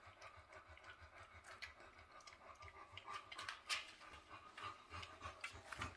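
American Bulldog panting softly in quick, even breaths, out of breath from playing, with scattered small clicks.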